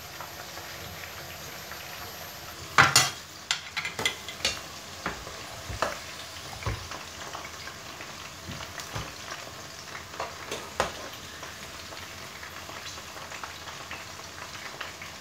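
Peppers frying in a pan of hot oil with a steady sizzle. From about three seconds in, a metal skimmer clinks and scrapes against the pan as the peppers are lifted out to drain.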